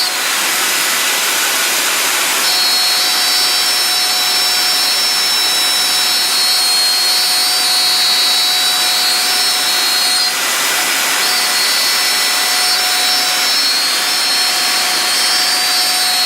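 CNC router spindle cutting 18mm MDF, over the steady rush of the vacuum hold-down bed. It makes a loud, steady noise with a high whine on top, which drops away briefly twice: near the start and about ten seconds in.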